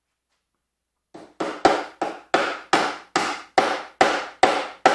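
Klein pliers used as a hammer, banging a cable staple in: about eleven sharp, evenly paced strikes, two or three a second, starting about a second in.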